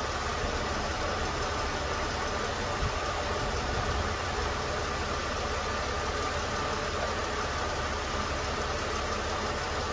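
A 2011 Chevy Impala's 3.5-litre V6 idling steadily, warmed up to operating temperature.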